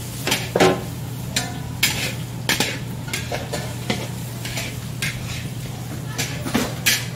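Metal spatula scraping and clanking against a large wok as tomato and egg are stir-fried, in irregular strokes about two a second, over a steady sizzle and a low hum.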